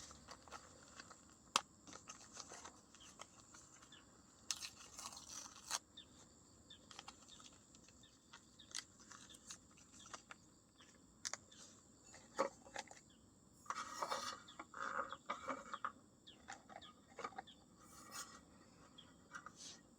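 Faint, scattered clicks, taps and short scrapes of small objects being handled, with a busier patch of them about two-thirds of the way through.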